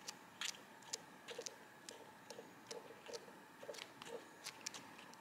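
Pages of a paper sticker pad being flipped quickly by hand, a soft faint flick at each page turn, about two or three a second.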